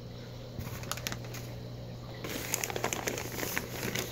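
Thick clear plastic bag crinkling and rustling as it is handled, with a few light clicks in the first second. The crinkling gets louder and denser about two seconds in, over a steady low hum.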